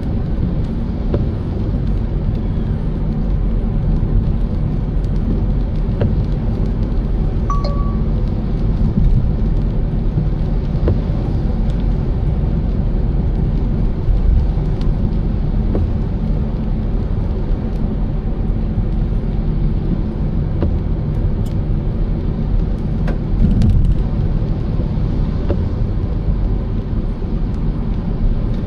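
Steady low rumble of a car being driven, with road and engine noise. A brief single beep sounds about eight seconds in.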